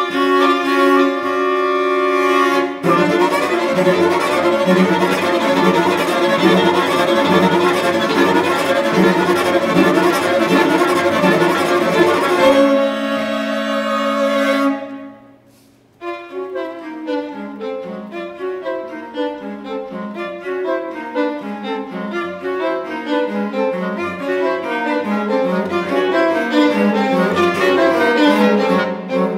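Flute, clarinet, violin and cello quartet playing contemporary chamber music. A held chord gives way to fast repeated figures, and then to a sustained chord that dies away into a brief pause about fifteen seconds in. After the pause the instruments play rapid descending runs that cascade downward over one another.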